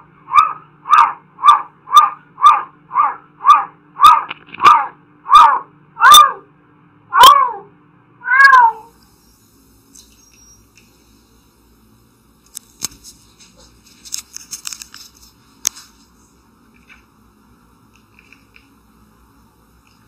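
A cat meowing in a rapid repeated series of short calls, about two a second, slowing near the end, where the last few calls are longer and fall in pitch; the calls stop about eight and a half seconds in. Later come a few faint clicks and a short spell of quiet rapid ticking.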